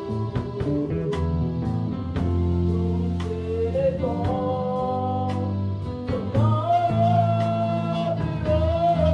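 Live gospel worship music: a woman singing long, held notes into a microphone, with band accompaniment and a drum kit keeping time with steady cymbal strikes.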